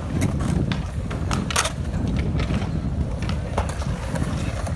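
Beach boardwalk ambience: a steady low rumble with scattered sharp clicks and taps, and no clear voices.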